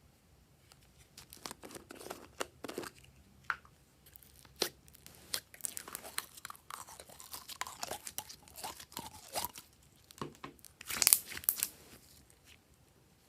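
Slime being squished and stretched, giving irregular crackles and pops, with the loudest cluster near the end.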